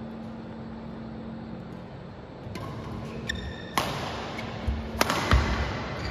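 Badminton play in a hall: a short squeak, then three sharp racket hits on the shuttlecock in the second half, the last two close together, over a steady hum and rising hall noise.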